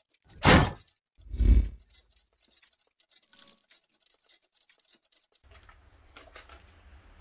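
Sound effects of an animated intro sting: two heavy thuds about a second apart, the second with a low rumble, followed by a faint brief whoosh.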